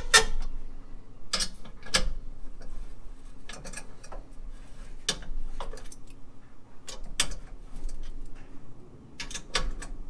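Hand ratchet wrench clicking in short runs as the nuts holding a car battery tray are tightened, with metallic clinks of the tool against the tray.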